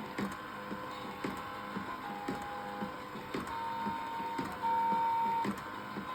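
Anpanman cooking-show toy running: sharp clicks about twice a second under simple electronic beeping notes, with one longer, louder note near the end.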